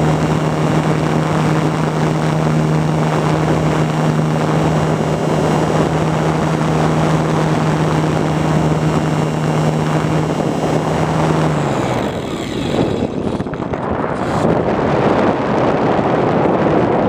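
RC plane's motor and propeller running at a steady pitch with wind rushing over the microphone. About three-quarters of the way through, the motor cuts off and only the wind rush of the gliding plane remains.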